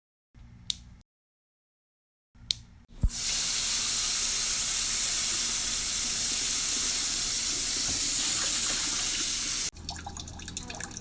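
Water running from a tap into a sink, steady for about seven seconds and then cut off abruptly. A couple of short clicks come before it starts, and a few softer ticks follow once it stops.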